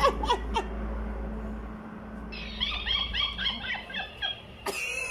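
Mimicking cactus toy playing back laughter in a sped-up, high-pitched voice: a quick run of chirpy laughs from about two seconds in. At the very start a person's own laughter fades out.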